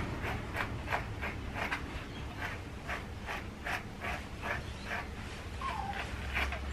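Slicker brush raking through a Bichon Frisé's curly, knotted coat in quick repeated strokes, about three a second, a scratchy rasp with each pull as the tangles are brushed out.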